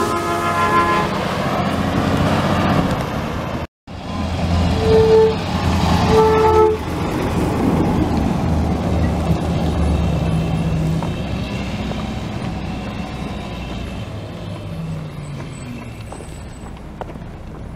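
Garbage truck's diesel engine running, with two short horn toots about a second apart, about five seconds in; these are the loudest sounds. The engine sound fades as the truck moves off down the street.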